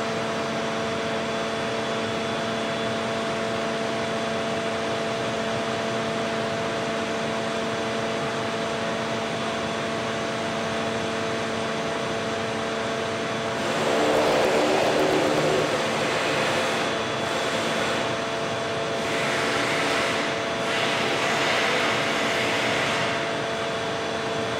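1000-tonne hydraulic press running with a steady hum of several fixed tones as its upper block presses a red-hot steel plate into shape. A louder rushing noise swells about halfway through and again for a few seconds near the end.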